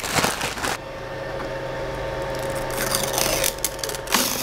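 Crinkling and rustling of a plastic bag and a chair being moved, in short bursts at the start and again near the end. About a second in, a steady hum starts as the Creality LD-002H resin 3D printer is switched on and its cooling fan spins up.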